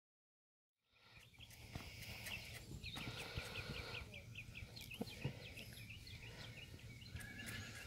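Silence for about the first second, then outdoor ambience: a bird singing a quick series of short, downslurred chirps, about four a second, over a low steady rumble, with a couple of faint knocks.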